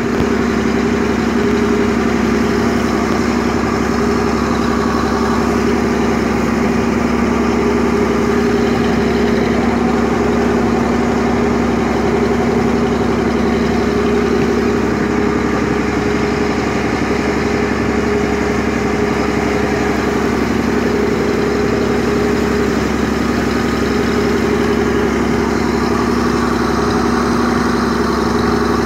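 Passenger ferry's engine running steadily under way, a constant hum over an even rushing noise of water and air along the boat.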